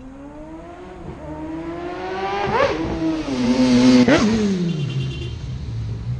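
2016 Yamaha R6's 600cc inline-four through a Graves full exhaust system, accelerating toward the listener with a climbing engine note. It shifts up about two and a half seconds in, is loudest as it passes close about four seconds in, then the note drops as it moves away.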